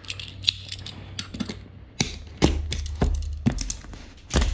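Utility knife cutting packing tape on a cardboard box: irregular scraping and sharp clicks as the blade drags along and catches, with a louder knock about two seconds in and another near the end.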